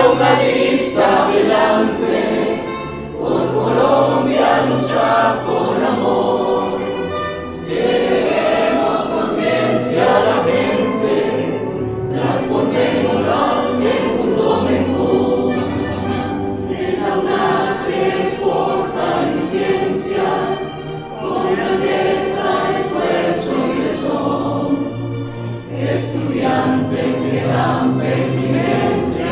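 An anthem sung in chorus by many voices, with musical accompaniment.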